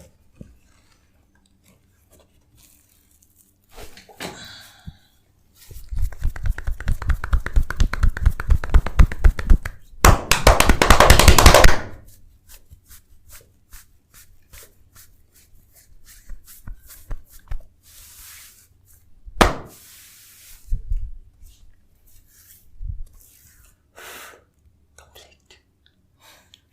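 Percussive massage: rapid, rhythmic hand strikes on the body, about five a second for some four seconds, then a louder, denser flurry of hand contact lasting about two seconds, followed by scattered light taps and a few single thuds.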